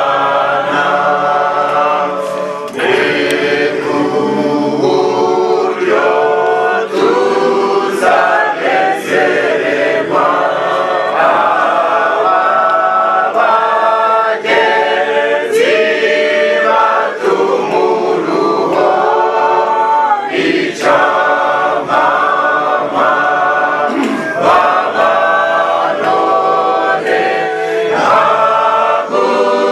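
A group of mourners singing together unaccompanied, the voices moving in short phrases.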